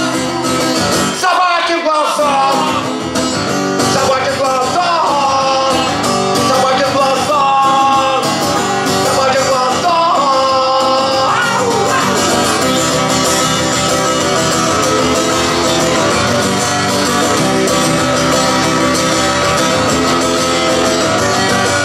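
Live song: a man singing over his own guitar playing, the voice dropping out about halfway while the guitar plays on.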